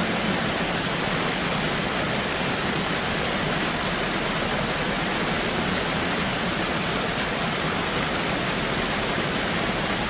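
Waterfall: a steady, even rush of falling water that holds the same level throughout.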